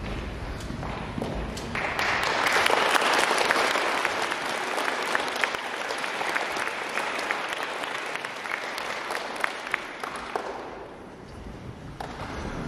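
Audience clapping: applause that starts about two seconds in, is loudest soon after, and dies away about ten seconds in.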